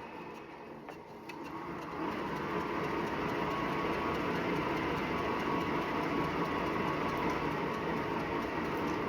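Wahoo KICKR Bike Shift smart bike being pedalled, its drive running with a steady whirring, rubbing grind that gets louder about two seconds in. The owner takes the rubbing, heard with every full pedal stroke, for a fault in the belt drive.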